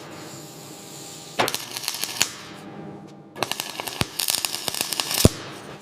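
A welder stitch-welds a steel patch panel onto a rusted van body in short bursts, keeping the heat down so the metal doesn't warp. The arc crackles twice: once about a second and a half in, then in a longer run from about three and a half seconds to near the end.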